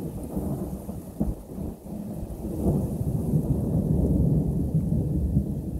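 Thunder rolling in a long, low rumble that dips briefly and then swells louder about two and a half seconds in, with light rain falling.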